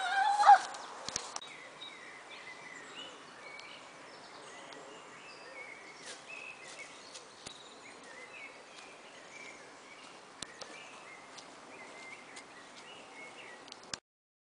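Woodland ambience with small birds chirping and singing faintly, cut off abruptly near the end. It opens with a brief loud rising cry from a person's voice.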